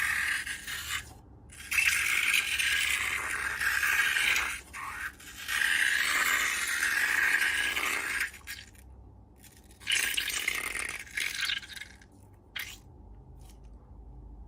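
Slime-making materials being handled: three spells of scraping, crackly noise, each lasting about two to three seconds, with short quiet gaps between them.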